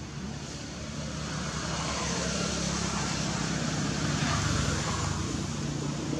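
A motor vehicle's engine running, with a steady low hum over a hiss, getting louder over the first two seconds and then holding.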